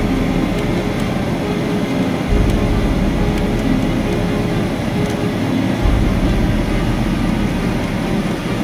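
Cabin noise of a Boeing 737-800 in flight, heard from a window seat over the wing: the CFM56 jet engines and airflow make a steady loud rush with a low hum.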